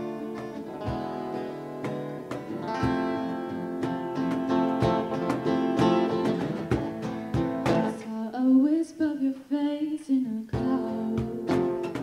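Acoustic guitars strumming a folk song, with a singing voice coming in about two-thirds of the way through.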